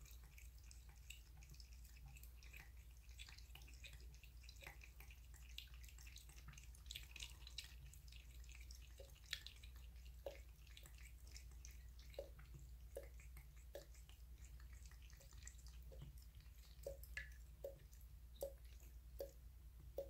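Faint water drips from a bathroom tap falling into a ceramic basin, settling in the second half into a regular drip about every three-quarters of a second. Wet little clicks from a cat licking and lapping water at the tap spout come mostly in the first half.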